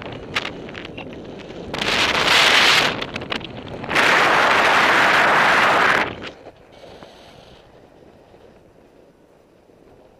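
Wind rushing over the microphone of a camera on a paraglider in flight. Two loud gusts come through, the second lasting about two seconds. The sound then drops to a low rush about six seconds in.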